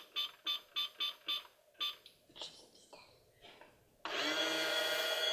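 Toy microwave's electronic sound effect: a rapid run of pulsing tones, about four a second, that fades out around two seconds in. About four seconds in, a loud electronic jingle of held tones starts suddenly.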